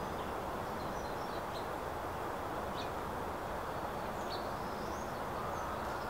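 Small songbirds giving scattered short, high chirps, about half a dozen, one of them a quick rising note near the end, over a steady low outdoor background noise.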